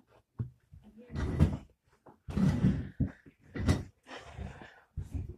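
Plastic Lego bricks and hands being handled on a wooden table: a series of irregular rustling, clattering bursts.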